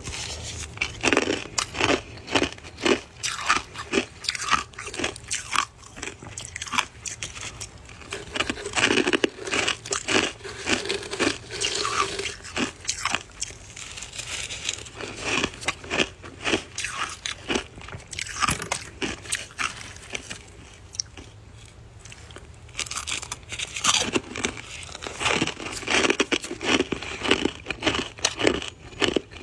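Close-miked biting and chewing of soft white freezer frost, a dense run of irregular crunches and crackles. The crunching eases off briefly about twenty seconds in, then picks up again.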